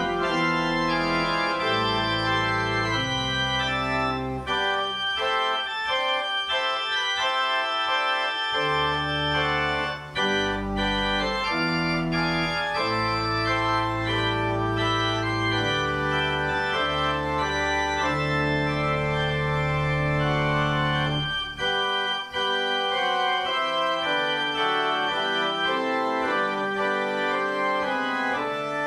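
Church organ playing slow, sustained full chords that change every second or two. The deep bass notes drop out twice for several seconds, leaving only the upper voices.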